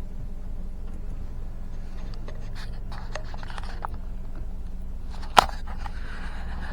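Steady low hum of a road vehicle on the move, with scattered light ticks and one sharp click about five seconds in.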